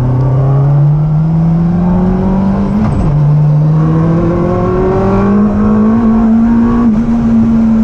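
Yamaha R1 inline-four motorcycle engine in a classic Mini, heard from inside the cabin, accelerating with a steadily rising pitch. A gear change about three seconds in drops the pitch briefly before it climbs again.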